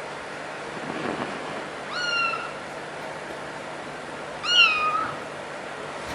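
Kitten meowing twice, short high-pitched calls about two and a half seconds apart, the second one louder.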